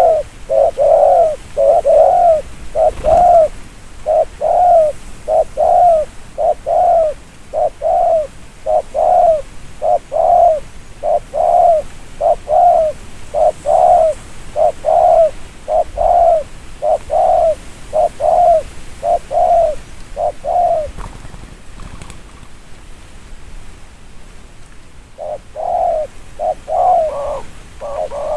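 Spotted dove cooing loudly and close, a fast run of short, evenly repeated coo notes. The calls stop for a few seconds about three quarters of the way through, then start again.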